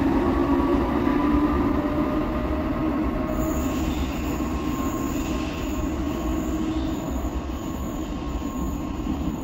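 Cologne Stadtbahn light-rail train pulling out of an underground station into the tunnel. Its rumble and humming whine fade gradually, and from about three seconds in a faint high-pitched squeal comes and goes.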